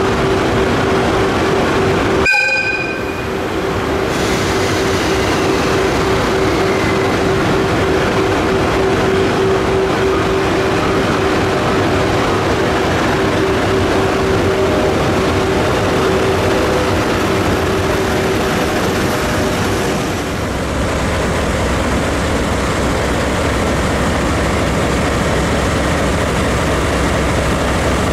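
EF81 electric locomotive running light through the station with a steady hum, after a brief horn toot about two seconds in. About twenty seconds in the sound changes to a DE10 diesel-hydraulic locomotive idling with a low, steady engine drone.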